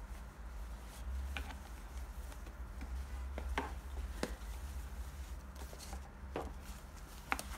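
Satin shoe dust bag being lifted out of a cardboard shoe box and handled: soft fabric rustling, with a handful of sharp, separate taps and clicks against the box.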